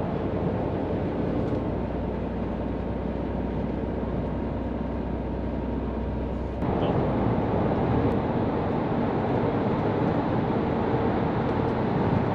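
Steady in-cab noise of a Hino tractor-trailer cruising on an expressway: diesel engine hum with tyre and road noise. About halfway through, the noise turns suddenly louder and rougher.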